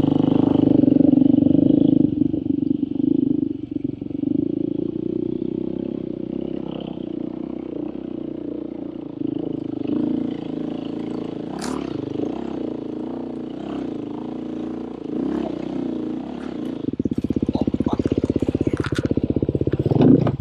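Off-road dirt bike engine running on a trail, its pitch rising and falling with the throttle, with a sharp knock about twelve seconds in. Near the end it changes to a slower, even pulsing beat.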